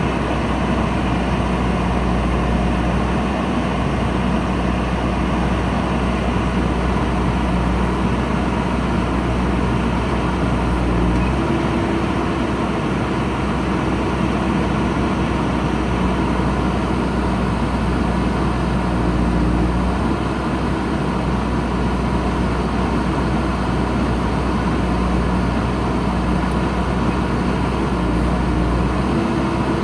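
JCB backhoe loader's diesel engine running steadily, its engine speed shifting a few times.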